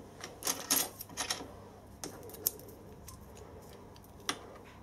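Several light, separate metallic clicks and clinks of small steel measuring tools, feeler gauges and a parallel, being picked up and handled against the machine.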